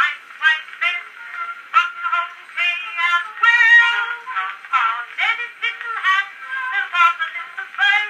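A female voice sings a comic song over a small orchestra, heard from a 1907 Edison Gold Moulded wax cylinder, an acoustic recording. It sounds thin and boxy, with no bass and little treble.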